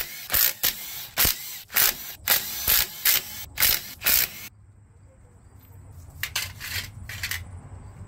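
Ridgid cordless impact driver fired in short repeated bursts, about ten quick blasts over four and a half seconds, backing out the cover bolts on a Massey Ferguson 461 front-axle planetary hub. A few short clatters follow near the end.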